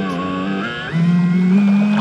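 Electric motor of a 6S-LiPo-powered RC jet boat whining with several pitches at once. About a second in it gets louder and its pitch steps up as throttle is added, then holds steady.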